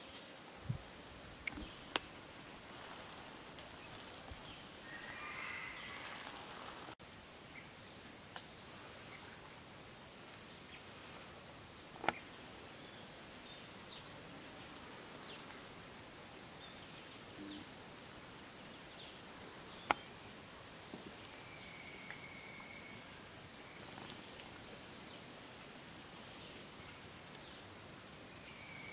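Steady, high-pitched chorus of insects droning without a break. There is a brief dip about seven seconds in, where the pitch shifts slightly.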